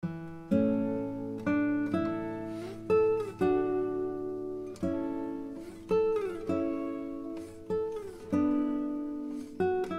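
Background music: an acoustic guitar plays a slow picked melody, each note ringing out and fading, with a few notes sliding in pitch.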